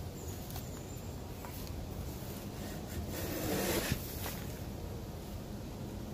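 Steel spade scraping and scooping soiled chicken-coop litter of bedding and droppings off the coop's wooden floor. About three seconds in there is a louder rustling scrape of the scoop, ending in a sharp knock of the blade.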